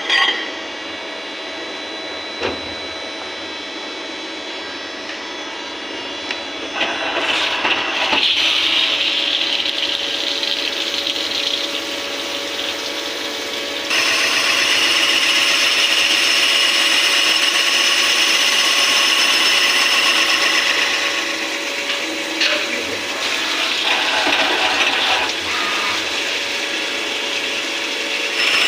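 CNC machine running a cut on an SS316 stainless steel camlock fitting: steady spindle and cutting noise with a high whine. It grows louder about 7 seconds in and again at about 14 seconds as the cutting changes.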